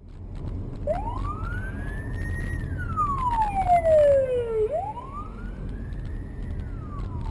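Police car siren wailing in slow rising-and-falling sweeps, two full cycles, over steady low road noise from the car the dashcam rides in.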